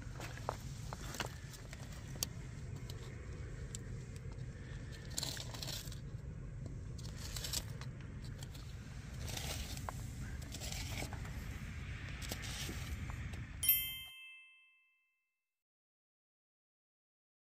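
A hand scraping and digging through wet sand, shell grit and pebbles, with scattered crunches and clicks over a low steady rumble. Near the end a short ringing chime sounds and dies away, and then the sound cuts to silence.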